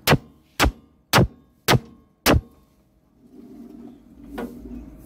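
Five sharp metal knocks about two a second, then a softer knock near the end: a tool tapping a part of an agarbatti-making machine to nudge it into centre alignment with the stick feed hole.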